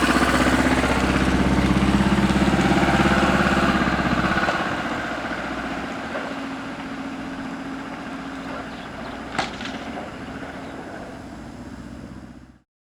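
A motor vehicle's engine running and moving off, loud for a few seconds and then fading steadily, with one sharp click about nine seconds in; the sound cuts off abruptly near the end.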